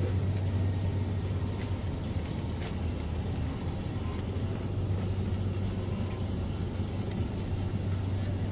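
Steady low hum of supermarket refrigerated display cases and ventilation, with a few faint clicks.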